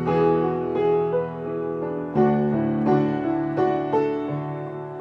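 Keyboard or piano playing chords in an instrumental interlude between sung lines of a worship song, with no singing.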